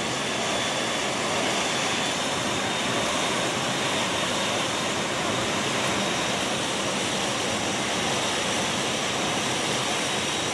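Steady roar of rushing wind and aircraft engines through the open side paratroop door, heard from inside the cabin of a military transport aircraft in flight.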